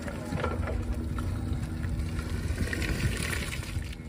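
Water splashing and hands rubbing as a mud-covered toy forklift is washed clean, over a steady low hum.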